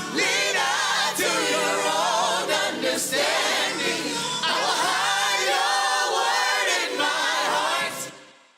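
Gospel choir singing loudly, with voices sliding between held notes. It fades out quickly to silence near the end.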